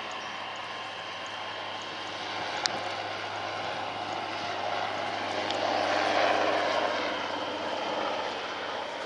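Twin-turbine Super Puma helicopter flying past: steady turbine whine mixed with rotor noise, swelling about six seconds in and easing off again. A single brief click a little under three seconds in.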